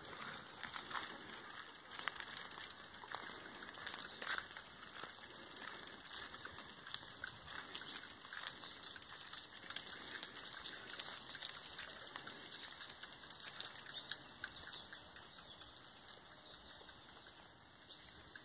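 Footsteps on a dirt path: quiet, irregular light crunches and clicks.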